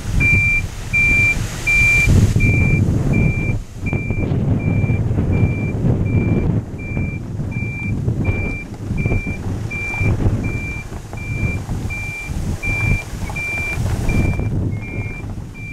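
Swing bridge warning beeper sounding: a high steady beep about every three-quarters of a second, the alarm that sounds while the bridge span is moving. A low rumble runs underneath.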